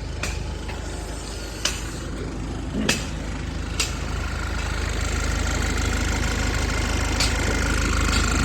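Diesel car engine idling steadily, with a few sharp clicks in the first four seconds and a faint steady whine joining about five seconds in.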